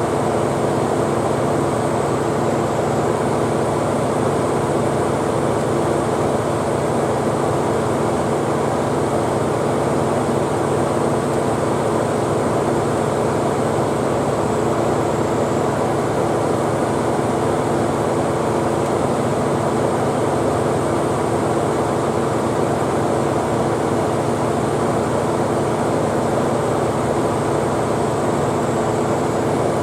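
Nissan Elgrand E51 running with its air conditioning on: a steady mechanical drone with a constant hum, the air-conditioner abnormal noise whose cause dealers have not found.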